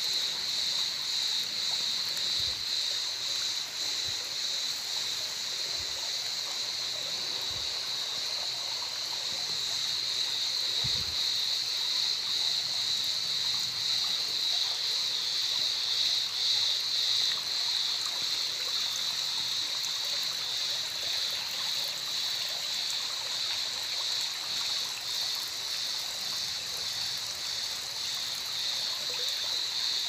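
Small stream of water flowing and trickling steadily over rocks at a cave mouth, a continuous hiss with a few faint low bumps early on.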